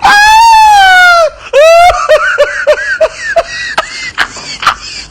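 A high-pitched voice gives a long, loud, falling cry, then a short rising whoop, then breaks into a string of short laughing bursts, about three a second. A few sharp clicks come near the end.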